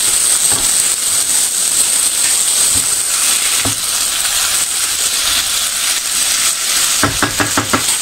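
Cabbage, onion, carrot and potato sizzling in a frying pan over high heat, stirred with a wooden spatula. A steady hiss with a few single knocks, and a quick run of taps near the end.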